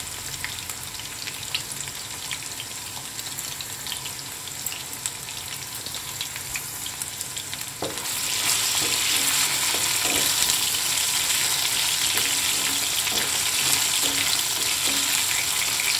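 Cubed potatoes sizzling and crackling as they fry in hot vegetable oil in a non-stick frying pan while a spatula stirs them. The sizzle grows louder and denser about eight seconds in.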